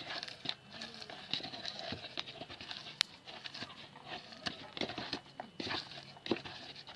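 Hands squeezing and kneading coleus (mayana) leaves together with grated fresh turmeric: an irregular run of soft wet squelches and leaf crackles as the juice is pressed out, with one sharp click about three seconds in.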